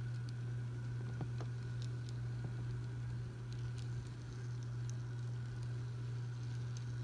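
N scale model freight cars rolling along the track, with a steady low hum under scattered light clicks of the wheels on the rails.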